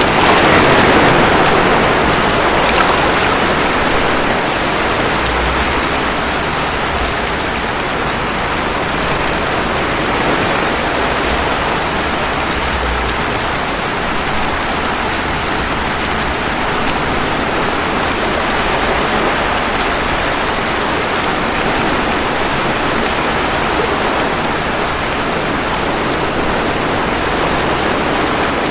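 Steady rain hiss mixed with ocean waves; a wave surges and fades over the first few seconds.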